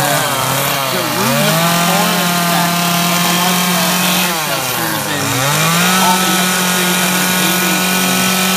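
Two-stroke gas chainsaw running at high revs while carving into an ash trunk. Its pitch dips and climbs back twice, about a second in and again around five seconds, as the engine slows and picks up.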